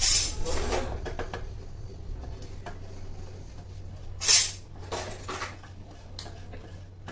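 Processed cheese cube rubbed across a handheld metal grater: a few separate scraping strokes, the loudest just after four seconds in.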